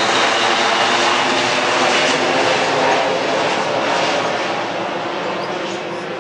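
Loud jet noise from the four turbofan engines of a Boeing C-17 Globemaster III passing low overhead, fading slowly over the last few seconds.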